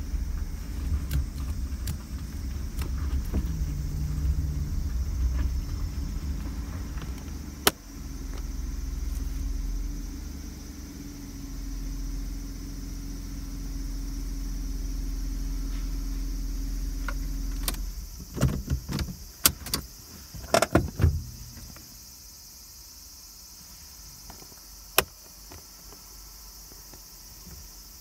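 Car driving, heard from inside the cabin: a steady low engine and road rumble that fades out about two-thirds of the way in as the car comes to a stop. Several sharp clicks and knocks follow, then only a steady high chirring of insects.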